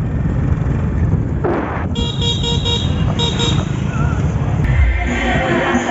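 Street traffic: a steady engine rumble with a vehicle horn tooting in a quick series of short blasts about two seconds in. Music begins near the end.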